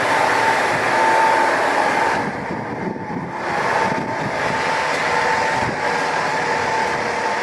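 Standing diesel railcar idling at the platform: a steady engine noise with a thin whine on top, dipping briefly about two seconds in.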